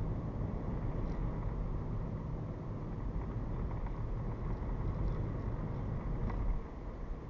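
Car driving, heard through a dashcam: a steady low rumble of engine and road noise that drops a little about six and a half seconds in.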